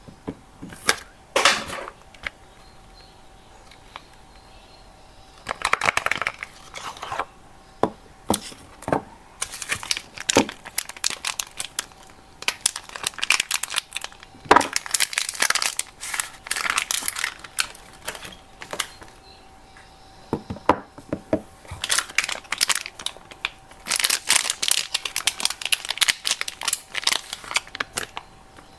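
Soap packaging being unwrapped by hand: irregular bursts of crinkling and tearing, with pauses of a few seconds between handlings.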